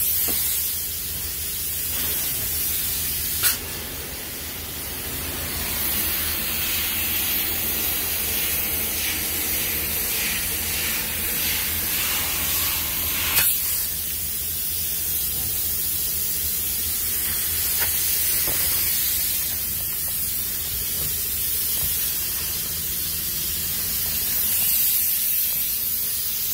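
Spray foam insulation gun hissing steadily as it sprays foam, over a steady low hum. Two sharp clicks cut through, one a few seconds in and one about halfway.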